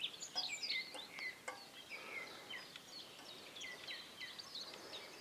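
Small songbirds chirping, faint: many short high notes, most of them dropping in pitch, one after another. Two faint clicks come in the first second and a half.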